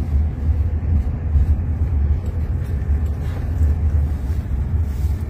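Steady low road and tyre rumble heard inside the cabin of an electric Jaguar I-Pace robotaxi on the move, with no engine note.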